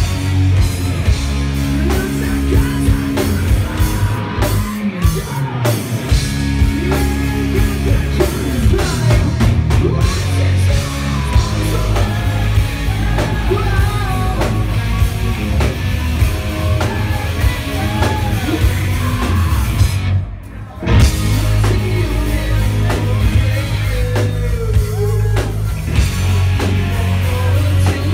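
Live hard rock band playing loud: distorted electric guitar, drum kit and keyboards, with vocals. Everything stops briefly for about half a second some twenty seconds in, then comes back in.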